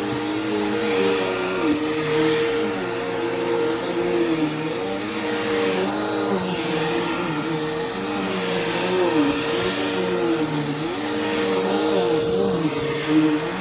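Bissell PowerForce Helix upright vacuum cleaner running steadily. Its motor hum has a constant high whine, while the lower tones keep dipping and rising in pitch as it is worked over the floor.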